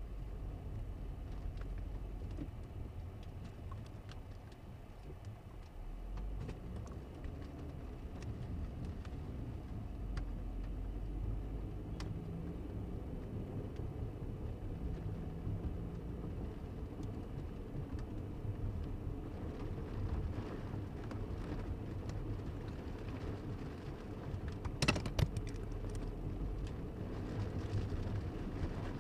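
Car driving on wet road, heard from inside the cabin: a steady low rumble of engine and tyre noise, with scattered light ticks of rain on the windshield. A few sharp knocks come near the end.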